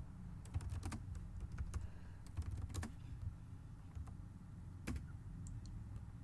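Computer keyboard being typed on: irregular key clicks, quick and dense for about three seconds, then a few scattered strokes, over a low steady hum.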